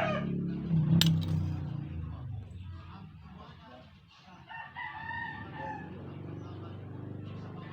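A rooster crowing: one crow of about a second, some four and a half seconds in, over a steady low hum. A single sharp knock comes about a second in.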